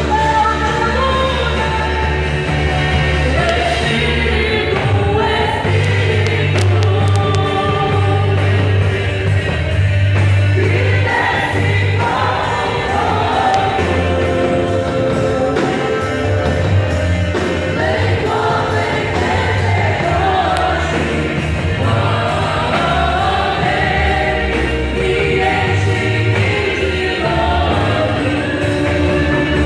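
Gospel worship music: a band with bass and cymbals playing under a group of singers.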